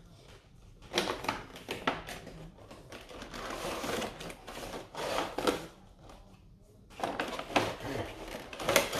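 Statue box packaging being handled and opened by hand: a run of clicks, scrapes and rustles, which stops for about a second near six seconds in and then starts again.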